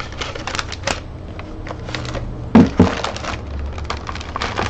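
Parts and packaging of a 3D printer kit being handled and rummaged through: a run of small clicks and crinkling rustles, with two loud knocks close together about two and a half seconds in.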